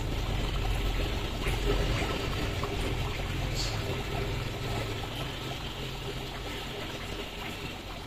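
Water trickling steadily in a guppy aquarium over a low hum, with a few faint ticks, easing slowly in level.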